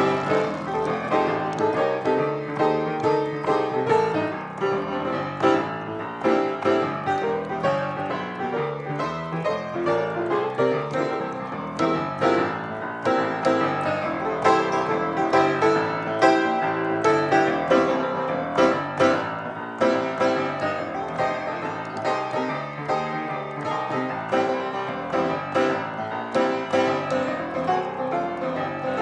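Piano playing a lively piece with quick runs of notes.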